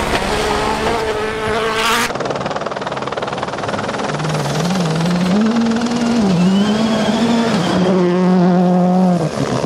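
Rally1 rally cars' turbocharged engines at full effort on a gravel stage. The first car's engine cuts off abruptly about two seconds in. A second car's engine then revs up and down repeatedly through gear changes as it approaches, and drops away sharply near the end.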